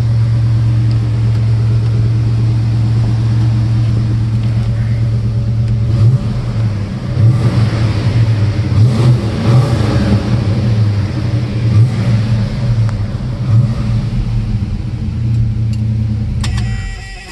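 1970 Plymouth Duster's 340 cubic inch four-barrel V8 with true dual exhaust, idling steadily, then revved in repeated short blips for about ten seconds. Near the end the engine is switched off and the sound drops away.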